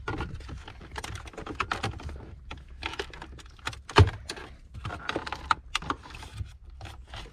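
Irregular plastic clicks and scrapes as a flat-blade screwdriver pries at the centre-console trim panel of a 2011 Porsche Panamera 4S, with one sharp knock about four seconds in.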